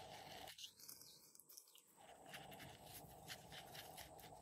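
Near silence, with a few faint soft clicks scattered through.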